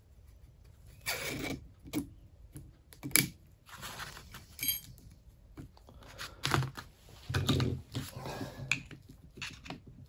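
A steel circlip being worked onto a stub axle with circlip pliers and slid down the shaft into its groove: irregular metallic clicks, knocks and scrapes.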